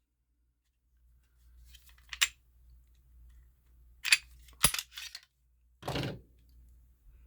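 Several sharp metallic clicks and clacks from a Glock 23 pistol being handled during takedown, with a duller, longer scrape near the end.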